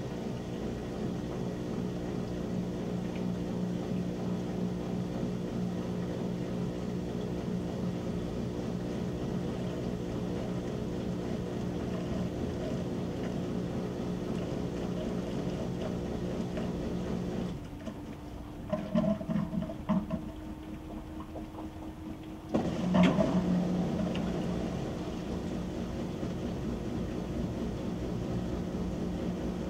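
Whirlpool WTW7300DW top-load washer spinning a load of clothes, giving a steady low hum. Past the middle the hum drops away for about five seconds, leaving a faint tone and a few short noises, then starts again abruptly.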